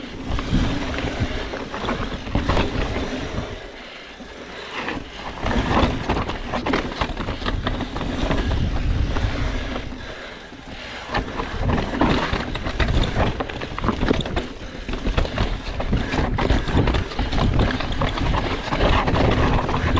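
Full-suspension mountain bike descending a dirt and rock trail: tyres rolling and crunching over dirt and stones, with frequent rattles and knocks from the bike over rough ground and a low rumble of wind on the microphone. The noise eases briefly about four seconds and ten seconds in.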